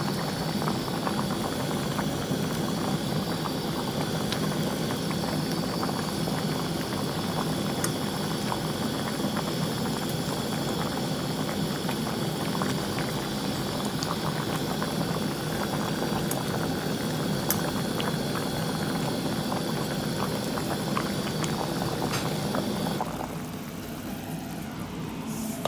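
A pot of beef and pork sinigang boiling hard, a dense steady bubbling crackle. Near the end it turns quieter and a faint high whine stops.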